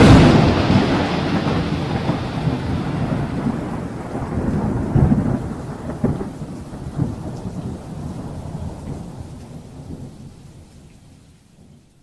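Thunderstorm sound effect: a loud thunderclap right at the start, more rolls of thunder about five to seven seconds in over rain, the whole dying away gradually.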